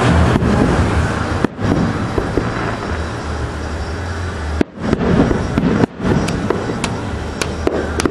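Aerial fireworks going off: sharp bangs about 1.5, 4.5 and 6 seconds in, then a run of lighter cracks near the end, over constant background noise.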